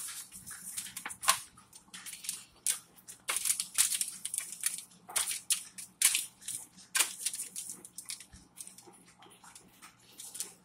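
Crumpled aluminium foil crinkling and crackling irregularly as hands rub seasoning into raw chicken drumsticks lying on it, growing quieter near the end.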